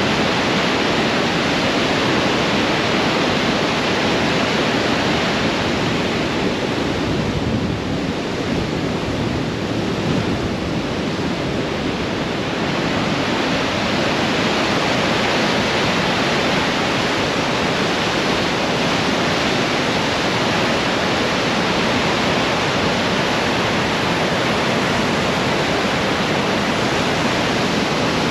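Great Falls of the Androscoggin River in heavy flow: a loud, steady rush of water pouring over the falls, a little softer for a few seconds near the middle.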